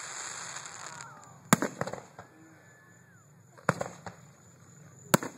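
Aerial fireworks shells bursting: three sharp bangs, each with an echoing tail, about a second and a half in, near four seconds and just before the end.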